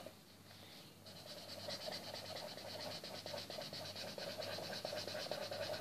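Felt-tip marker colouring in on paper with rapid back-and-forth strokes, starting about a second in after a short pause and running on steadily.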